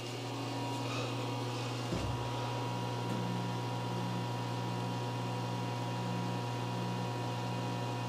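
Hurco VM1 CNC milling machine humming steadily with servo power on as it runs its power-up homing routine, driving its axes toward the home switches. About two and a half seconds in, a second, slightly higher hum joins and wavers on and off as an axis moves.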